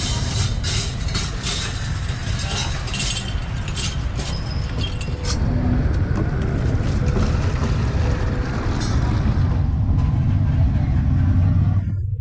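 Metal grill skewers clattering and clinking in quick, sharp knocks for the first five seconds or so, then water being poured from a plastic jug into a bucket over a steady low rumble of street traffic.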